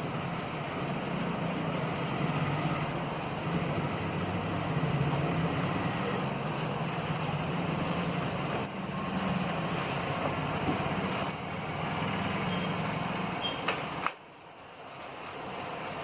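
A steady low rumble with a hum, like a running engine or machine, that cuts off suddenly near the end just after a couple of clicks.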